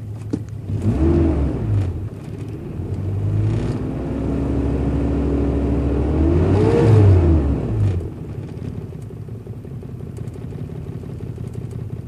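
A 1995 Toyota Tacoma's engine, heard from inside the cab, is revved briefly about a second in. From about four seconds in it is held at raised revs, rises once more, then drops back to idle around eight seconds. The engine shakes the cab more than it should, though it is not misfiring.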